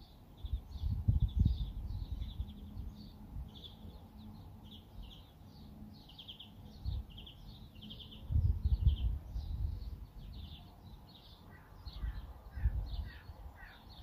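Small songbirds chirping continuously in quick high-pitched notes, with a lower-pitched bird joining in near the end. Gusts of wind rumble on the microphone about a second in, around eight seconds in, and again near the end, and are the loudest sound.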